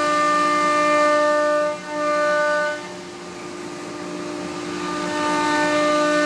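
Thermwood Cut Center CNC router spindle running with a steady whine as it cuts a wood sheet panel. The whine fades out for about two seconds midway, then gradually builds back.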